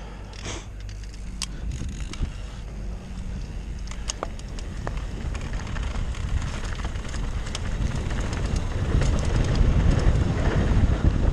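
Wind buffeting the camera's microphone, growing steadily louder as a mountain bike gathers speed downhill, over a rumble of tyres rolling on a gravel trail. Scattered sharp clicks and rattles from stones and the bike run through it.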